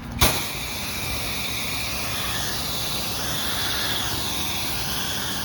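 Pressure washer wand on a fan tip opening up with a sharp click, then a steady hiss of high-pressure water spray rinsing sodium hypochlorite off vinyl siding.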